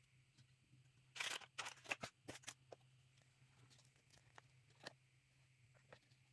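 Small plastic toy pieces and packaging being handled: a short run of crinkling and clicking about a second in, then a few scattered light clicks.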